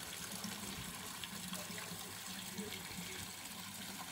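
Water from a small rock waterfall splashing steadily into a koi pond.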